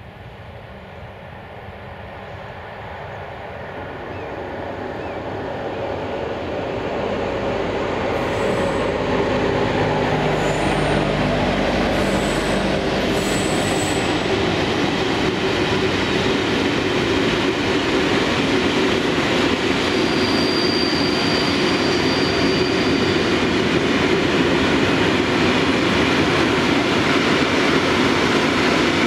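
A locomotive-hauled freight train approaches and passes, growing steadily louder over the first eight seconds, with a few steady tones as the locomotive goes by. Then comes the continuous rumble and clatter of covered hopper wagons rolling past on the rails, with a thin high wheel squeal for a few seconds about two-thirds of the way through.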